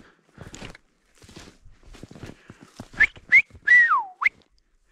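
Footsteps crunching through snow and brush, then about three seconds in a person whistles: two short rising notes, one longer note sliding down, and a short rising note at the end.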